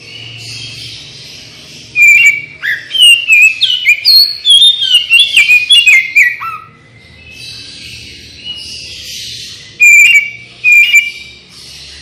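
Oriental magpie-robin (kacer) singing: a fast run of loud, varied whistled notes, many sliding down in pitch, from about two seconds in, then two more sharp notes near the end.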